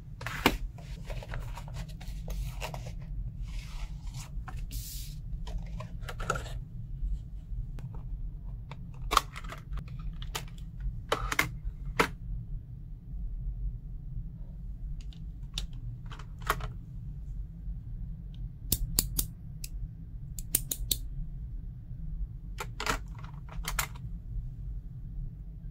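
Plastic packaging of a Tamiya Basic Tool Set crinkling and rustling for about the first seven seconds, then scattered sharp clicks and taps as its clear plastic case is opened and the tools are picked out. A steady low hum runs underneath.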